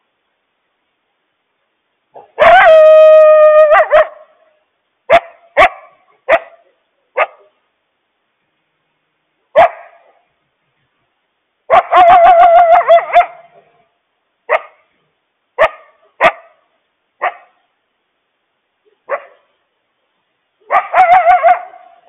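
Coyote alarm barks and bark-howls: a loud, high-pitched drawn-out call about two seconds in, then single sharp barks a second or so apart, a second long wavering call midway, more spaced barks, and a last call near the end. It is a warning call, which the uploader takes for a mother coyote alerting her family to a loose dog.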